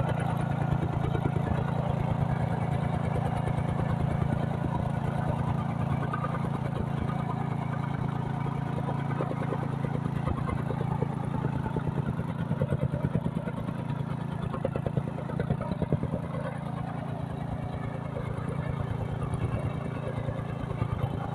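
Gasoline tamping rammer running, its small engine humming steadily under rapid, repeated thumps of the foot plate pounding loose soil.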